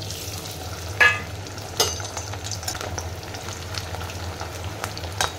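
Boiled potato cubes sizzling as they fry in hot oil in a kadhai. A few sharp metal clinks of steel utensils against the pan, the loudest about a second in.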